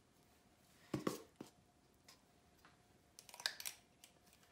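Metal cookie scoop clicking and scraping as batter is scooped and released onto a parchment-lined sheet pan: a few soft clicks about a second in and a short cluster around three and a half seconds in.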